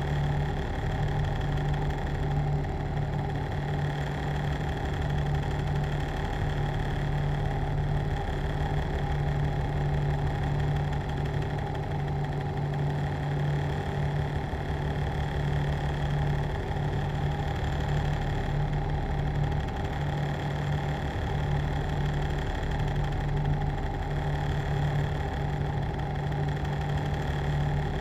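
A machine running steadily: a continuous low hum with a rapid pulsing underneath and a few steady higher whining tones, unchanging throughout.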